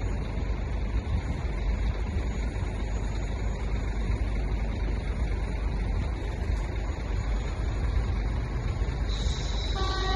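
Steady low rumble of wind and road traffic. Near the end a horn gives a short toot.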